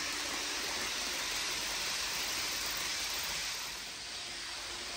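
Steady hiss of HO scale model trains rolling along the track, dipping briefly around four seconds in.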